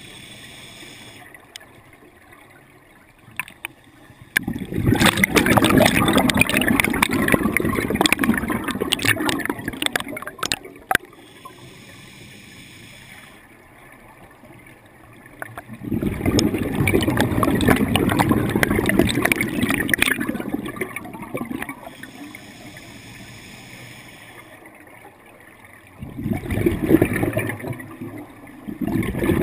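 Scuba diver breathing through a regulator underwater: exhaled bubbles burbling out in three long bursts roughly ten seconds apart, with quieter inhalations between them.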